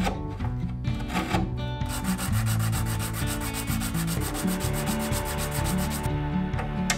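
A brass hinge rubbed quickly back and forth on sandpaper, about ten strokes a second for some four seconds from about two seconds in, after a few slower scraping strokes. Soft background music underneath.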